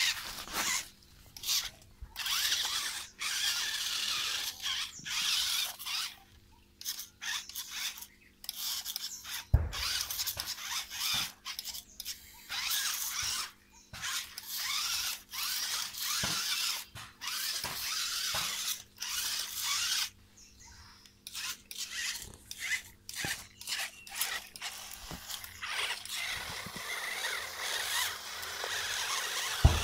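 Small electric motor and gearbox of a toy 4x4 off-road RC car whining in many short stop-start bursts as it is driven through mud. There is a sharp thump about ten seconds in and another near the end.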